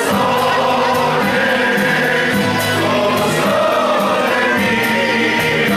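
A large group of waiters singing together as a choir over music with a steady beat.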